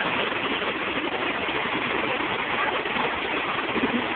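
Steady rush of a waterfall, an even roar of falling water with no let-up.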